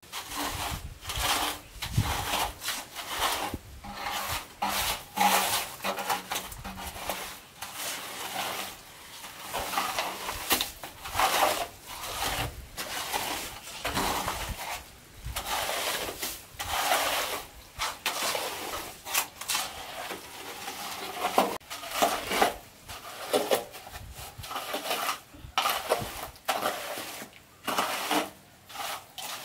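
A straightedge scraping back and forth over freshly laid wet cement, screeding the floor level in a run of uneven strokes.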